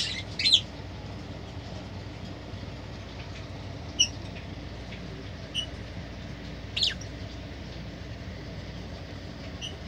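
A few short, high lovebird chirps spaced a few seconds apart over a steady low hum.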